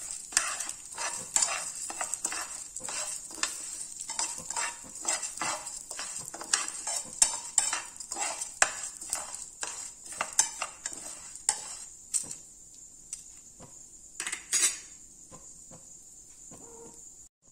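Slotted metal spatula stirring and scraping basmati rice as it roasts in ghee in a coated frying pan: repeated scrapes and taps about twice a second over a light steady sizzle. The strokes thin out after about twelve seconds, with a couple of louder knocks a little later.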